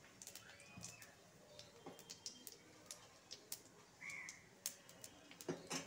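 Panch phoron seeds and a dried red chilli frying in a little hot mustard oil in a kadai, spluttering faintly with scattered small pops and ticks, and a louder click near the end.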